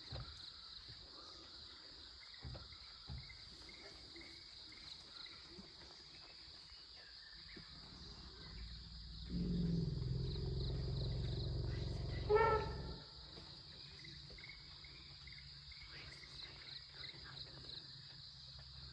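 Forest insects chirring steadily. About nine seconds in a low rumble starts and runs for about four seconds, ending in a short, loud trumpet call from an Asian elephant, the sign of an agitated elephant facing the vehicle.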